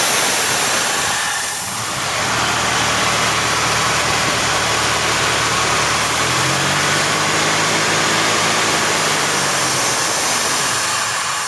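Truck's carbureted 400 V8 running warm with a loud wheezing hiss as the throttle is slowly opened and closed. The hiss eases briefly about a second and a half in, and the engine note grows stronger from about six seconds in before dropping back near the end.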